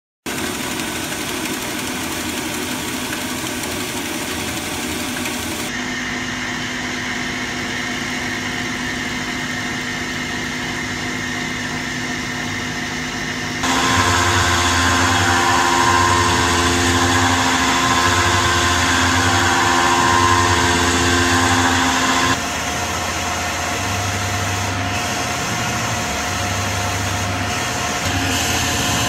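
CNC milling machine spindle running and an end mill cutting a pocket in an aluminium plate: a steady machining whine that changes abruptly a few times. It is loudest for a stretch in the middle, where the cut pulses in a slow, regular rhythm.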